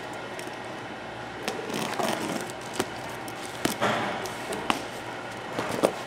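A taped cardboard box being opened by hand: packing tape tearing and cardboard flaps rustling and being pulled back, with several sharp clicks and snaps among the rustling. A steady hum runs underneath.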